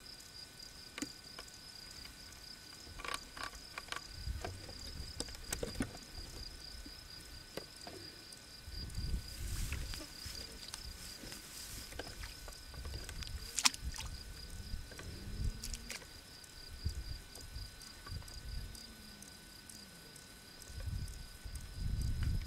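An insect trilling steadily at a high pitch in a fast, even pulse, with scattered faint clicks and irregular low rumbles.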